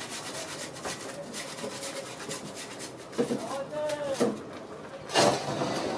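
Food being grated on a flat hand-held metal grater: a run of quick, even rasping strokes, with a louder scrape near the end.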